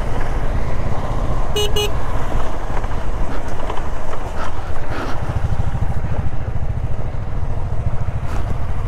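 Motorcycles running on a dirt road: a KTM 390 Adventure's engine and tyre noise, with a Royal Enfield alongside. Two short horn beeps come about one and a half seconds in.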